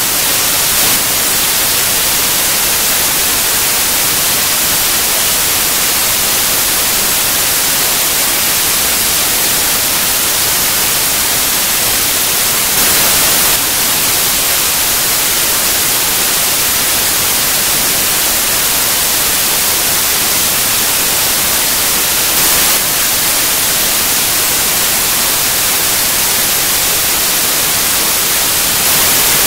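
Loud, steady static hiss like white noise, even across high and low pitches and brightest at the top, with no other sound in it.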